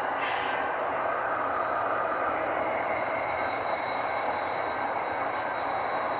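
Model trains running on a layout: a steady rolling rumble of wheels on the track with a faint high whine, and a brief hiss near the start.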